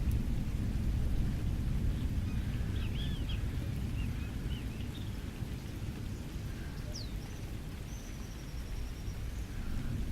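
Rain with a steady low rumble underneath, and birds calling over it: a run of short arched chirps a few seconds in, a single falling whistle about seven seconds in, and a high trill near the end.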